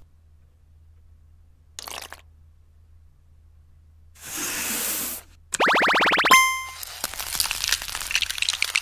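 Edited stop-motion sound effects: after a mostly quiet start with one brief soft sound, a short hiss, then a quick rising tone, then dense crackling like ice forming as the filled brick molds freeze.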